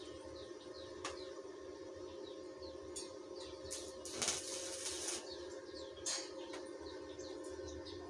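Electric arc tack welds on steel tubing: a few brief crackling strikes and one hissing weld about a second long, about four seconds in. Steady machine hum and birds chirping underneath.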